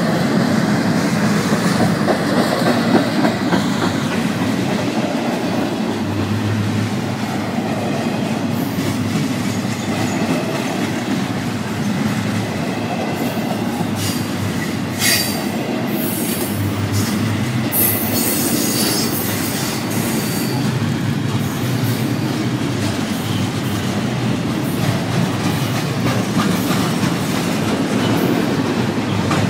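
Double-stack intermodal freight well cars rolling past at close range: a steady rumble of wheels on rail, with a run of brief high-pitched wheel screeches around the middle.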